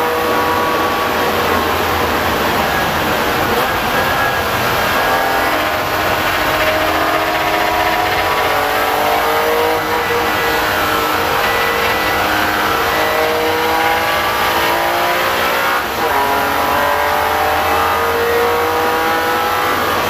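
BMW M3 race car's engine heard from inside the cockpit, revving up and dropping back again and again as it changes gear, over a steady hiss of wet road and wind noise. The engine note briefly drops away about ten and sixteen seconds in.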